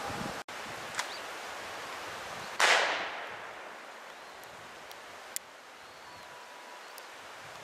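A single distant gunshot about two and a half seconds in, its echo fading over about half a second, over steady wind noise on the microphone.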